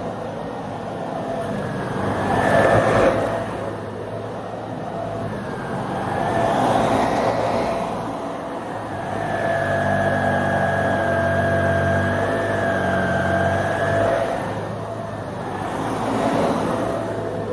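Dyson Ball Multifloor 2 upright vacuum cleaner running, a steady motor with a high whine, swelling and easing in loudness every few seconds.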